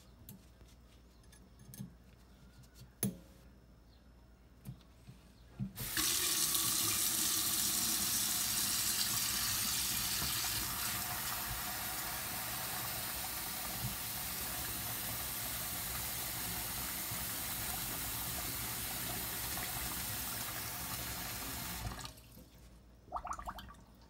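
Moen single-handle kitchen faucet running water into a stainless steel sink. The steady rush of water comes on suddenly about six seconds in and cuts off abruptly a couple of seconds before the end. Light clicks of handling come before it, and a brief clatter follows just after it stops.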